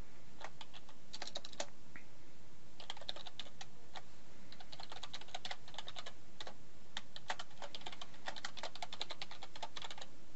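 Typing on a computer keyboard: quick runs of keystrokes with short pauses between them, as an email address and then a password are entered.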